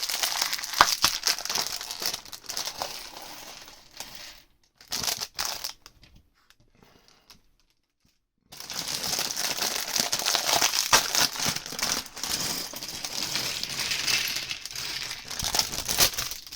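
Thin plastic bags of LEGO parts being crinkled and opened, in two long spells with a quiet pause of a couple of seconds in the middle.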